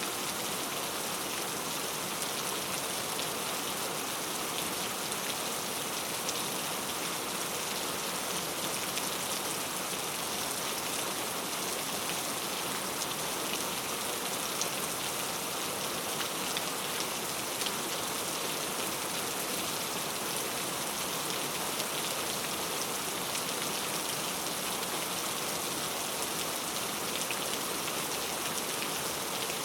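Heavy rain falling steadily on a camping tent, a dense even hiss with countless small drop ticks and no thunder.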